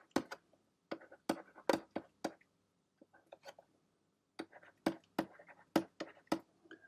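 Stylus tapping and scratching on a pen tablet while words are handwritten: a run of short, sharp clicks at an uneven pace.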